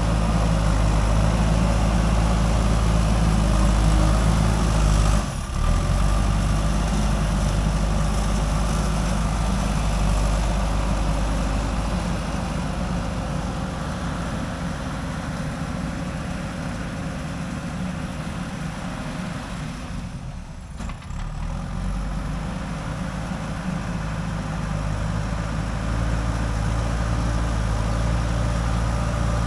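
JCB 3DX backhoe loader's diesel engine running steadily, with brief drops in level about five seconds in and again about twenty-one seconds in.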